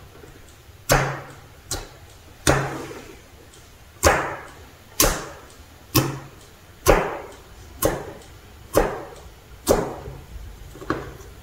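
Fingertips poking into a thick, dough-like slime made with sugar and flour, about a dozen sharp squishy pokes roughly one a second, each trailing off briefly.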